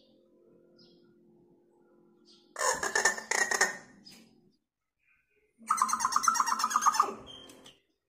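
Hill myna giving two loud, rasping calls, each a rapid chatter about one and a half seconds long, the first about two and a half seconds in and the second about three seconds later.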